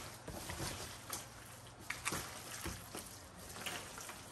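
Gloved hands mixing wet, seasoned pork chunks in a plastic tub: faint, scattered squishing and sloshing of meat and a little water as curing salt and seasoning are worked in.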